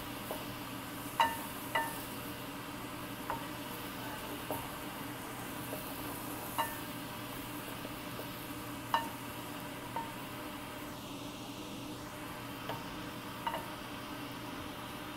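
Diced chicken, shrimp, peas and shallots frying in a stainless steel pan: a steady sizzle, with a spatula stirring and knocking sharply against the pan about a dozen times at irregular intervals.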